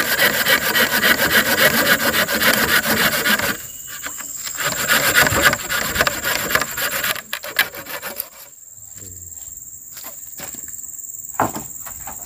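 Hand saw cutting through a round wooden log with steady back-and-forth strokes. The strokes pause briefly about three and a half seconds in, resume, and stop about seven seconds in, leaving a few light knocks over a steady high insect drone.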